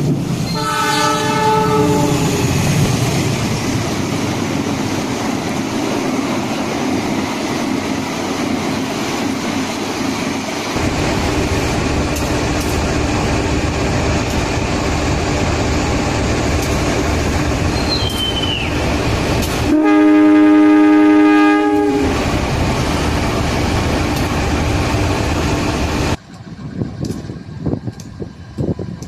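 Diesel locomotive horn sounding semboyan 35, the Indonesian railway horn signal: a short blast about half a second in, then a longer blast of about two seconds past the middle, the loudest sound here. Underneath runs the steady noise of a moving train with wheel clatter, and the background changes abruptly twice.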